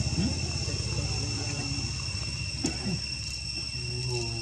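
Insects chirring steadily in two even, high-pitched tones, with faint low murmuring underneath and one sharp click a little before three seconds in.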